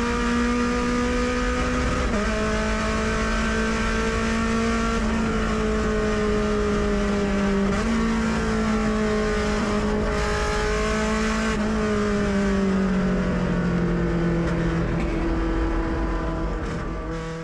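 Mazda MX-5 Cup race car's four-cylinder engine heard from inside the cockpit over road and tyre noise. Its note steps down in pitch four times, a few seconds apart, then slides lower near the end before the sound fades out.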